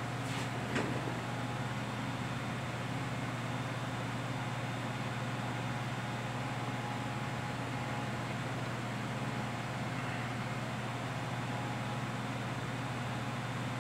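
Steady low hum with an even hiss, and one light knock just under a second in as a glass insulator is handled.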